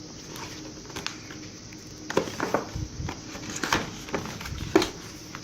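Cardboard box being handled and opened: a run of short knocks and scrapes starting about two seconds in, the loudest one near the end.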